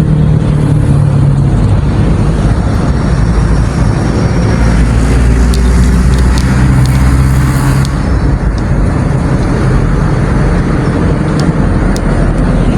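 Road traffic: motor vehicle engines running steadily nearby, with a few light clicks around the middle and near the end.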